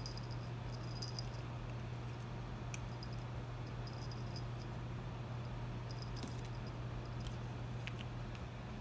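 Faint jingling of a kitten's collar bell and light rustles of a paper strip as the kitten bats and bites at it, in scattered short bursts over a steady low hum.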